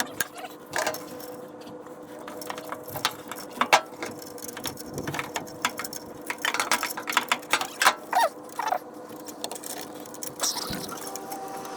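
Metal tools and parts being handled: a run of irregular clinks, taps and rattles with a few short squeaks, over a steady faint hum.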